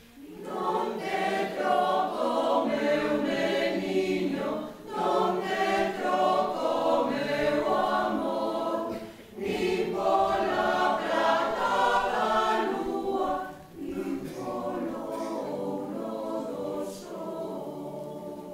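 Mixed choir of men and women singing a Galician lullaby (canto de berce) in phrases, with short breaks between them about every four to five seconds; the last phrase is softer.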